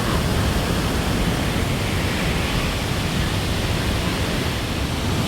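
Victoria Falls' huge waterfall giving a steady, unbroken rushing roar of falling water.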